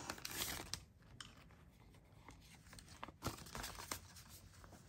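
Paper banknotes and the clear plastic pouch of a cash binder rustling and crinkling as bills are pulled out and handled, with a sharp click a little over three seconds in.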